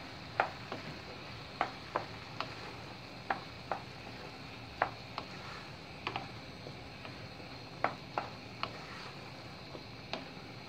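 Wooden spoon stirring risotto rice and asparagus in a frying pan, knocking against the pan in irregular sharp clicks about once a second. Under it a faint, steady simmering hiss from the pan.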